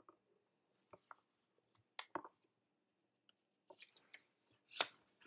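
Faint rustles and light taps of a picture book's paper pages being handled and turned, a handful of brief sounds with the loudest a short paper swish near the end.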